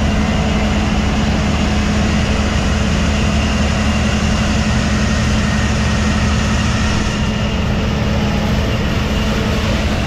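New Holland CX5090 combine harvester running steadily at working speed as it cuts wheat and drives past, a loud, even drone with a strong low hum.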